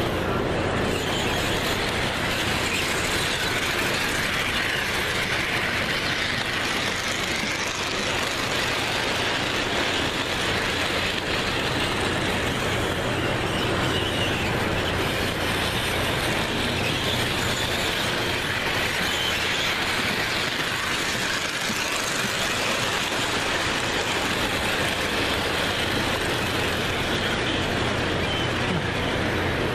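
O scale model train running around the layout's track: a steady rattle and rumble of wheels and motor, with a low hum underneath.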